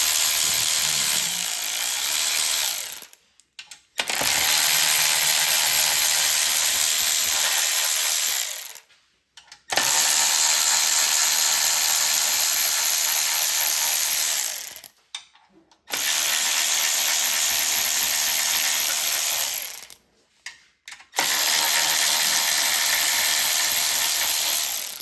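Ratchet wrench turning out the 10 mm side-cover bolts of a Predator 212 engine, its pawl clicking in long runs of about four to five seconds. The runs stop and start again with short breaks, one bolt after another, five runs in all.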